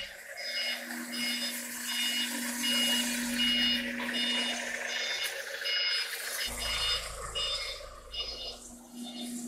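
A 5-axis CNC router's spindle runs with a steady hum and hiss while milling a foam block. A high electronic beep repeats about twice a second over it, thinning out near the end.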